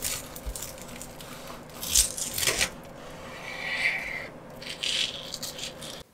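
Knife sawing through the crisp breadcrumb crust of a deep-fried breaded Spam cutlet: a run of crackly crunching and scraping, loudest about two seconds in and again around five seconds, stopping abruptly near the end.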